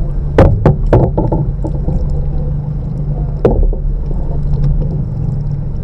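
A boat's motor running with a steady low hum, with a quick cluster of sharp knocks in the first second or so and one more knock about three and a half seconds in.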